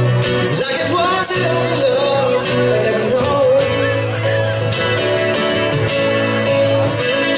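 Live slow country music on two acoustic guitars and a pedal steel guitar, the steel playing gliding, wavering notes over the strummed chords.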